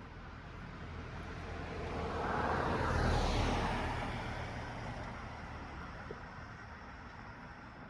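A road vehicle passing by: a rumble and tyre hiss that swells to its loudest about three seconds in, then slowly fades away.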